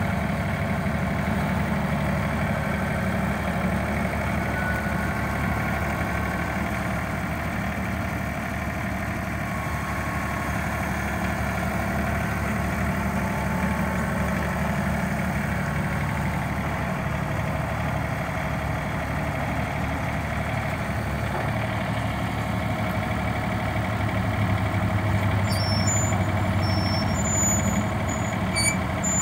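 TYM T394 compact tractor's diesel engine running steadily as the tractor is driven slowly. It grows somewhat louder near the end while the front loader is raised.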